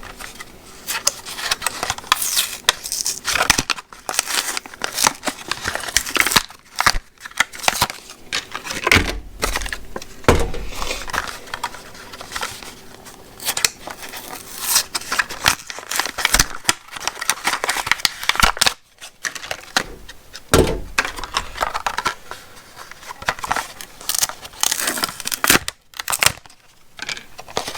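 Retail packaging being cut and torn open by hand: irregular plastic and cardboard crinkling, tearing and snipping, with small parts being handled.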